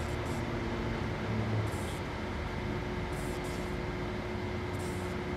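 Steady mechanical hum and hiss with a constant whine, with a few brief, soft crinkles of a handheld plastic bag.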